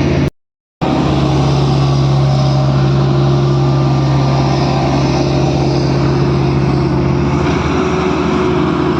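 A steady engine-like drone. It cuts out for about half a second near the start and changes in tone about seven and a half seconds in.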